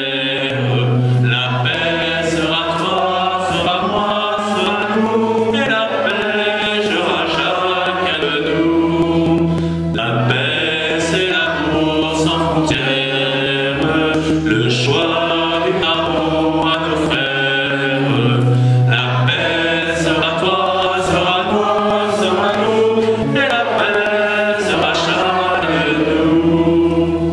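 A choir and congregation singing a hymn, led by a male cantor at a microphone, over sustained low accompaniment notes.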